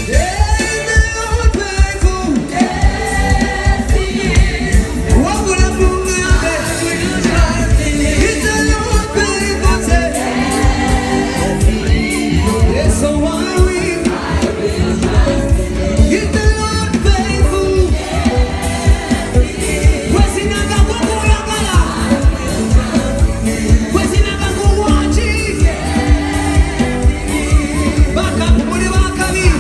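Amplified gospel worship music: a band playing a steady beat with a strong bass under a singing voice.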